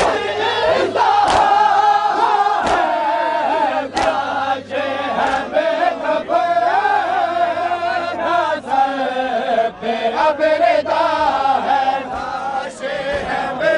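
Crowd of men chanting a mourning noha in unison, with the sharp slaps of matam, bare chests struck in time, landing about every second and a half.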